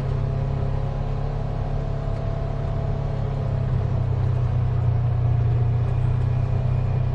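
Side-by-side UTV engine running steadily as it drives a rough trail, a deep drone that gets a little louder about four seconds in.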